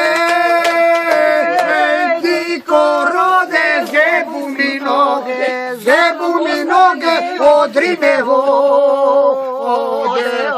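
A man and a woman singing a folk song together without instruments, drawing out long held notes with a wavering vibrato at the start and again near the end.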